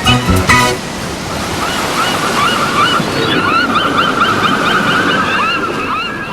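The last notes of the theme music, then ocean surf washing with a steady hiss, with many short bird calls chirping over it, busiest in the second half.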